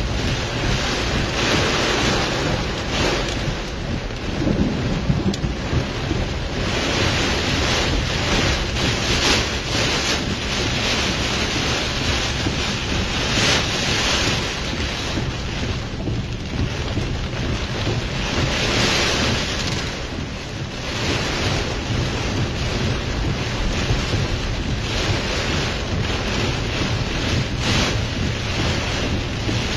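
Tornado-driven wind and torrential rain pounding a car, heard from inside the cabin: a loud, steady rush that surges in gusts every few seconds.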